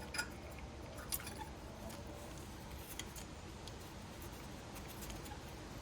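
A few faint metallic clicks and scrapes of a flathead screwdriver working a brake caliper's retaining spring into place, with short clicks near the start, about a second in and around three seconds.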